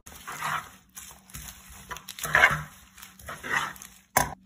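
Crisp romaine lettuce leaves being torn by hand and tossed in a wooden salad bowl with tongs: three short rustling, crunching bursts, the loudest in the middle, then a sharp knock near the end.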